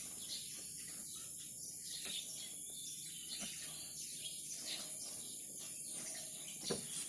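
Insects chirring steadily in a continuous high-pitched chorus, with a single short knock near the end.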